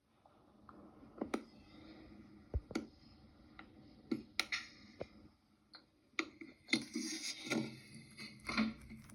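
About a dozen irregular clicks and light knocks, the sound of small hard objects being handled, over a faint steady hum.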